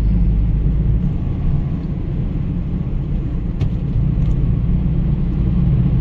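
A car driving on the road, giving a steady low rumble of engine and tyre noise.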